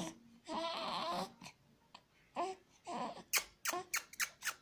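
Young baby cooing and babbling: one drawn-out, wavering coo, then two shorter coos, followed by a quick run of sharp clicks near the end.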